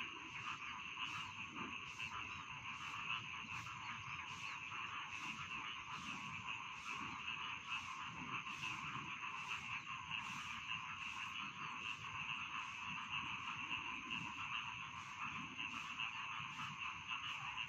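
A dense chorus of rice-paddy frogs croaking continuously, many calls overlapping, with a regular pulse about twice a second running through it.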